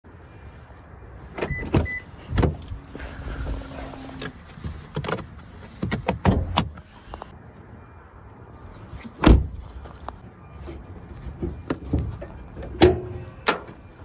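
Doors and latches of a 2022 Toyota Corolla Hybrid being worked: the driver's door is unlatched and opened, then comes a run of separate clunks and knocks as the bonnet is released and raised. The loudest clunk comes about nine seconds in.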